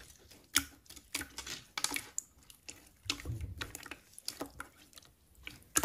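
Clear slime studded with heart-shaped clear beads, squeezed and kneaded by hand, making irregular soft clicks and pops.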